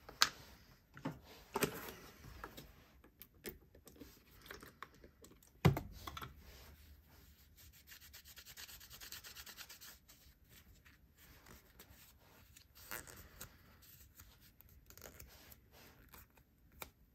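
Small tools and knife parts handled on a leather work mat: scattered sharp clicks and taps, the loudest about six seconds in, and a stretch of quick rubbing or scraping about eight to ten seconds in.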